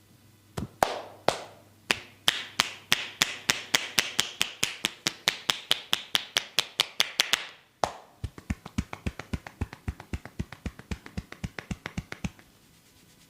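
Rapid percussive massage strokes: hands striking the body in a steady rhythm of about five sharp slaps a second. They stop briefly a little past the middle, then go on somewhat softer and faster before stopping.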